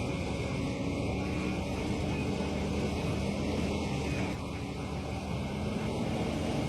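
Engine of a heavy machine such as an excavator or tractor running steadily, a constant noisy drone with a low hum.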